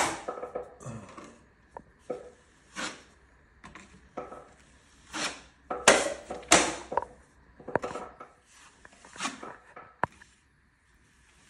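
A steel drywall knife scraping and wiping wet setting-type joint compound across the drywall in a series of short strokes with pauses between them, smoothing the coat and working out air bubbles. There is a single sharp click about ten seconds in.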